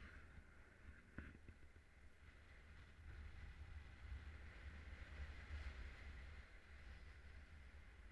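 Faint wind rushing over a harness-mounted camera during a paraglider flight, a low muffled buffeting under a soft hiss that swells slightly a few seconds in. A brief click about a second in.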